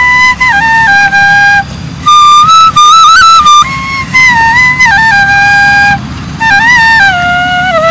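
Bansuri (bamboo flute) playing a solo melody of held notes joined by slides, with a quick trill about three seconds in and a line that steps downward near the end.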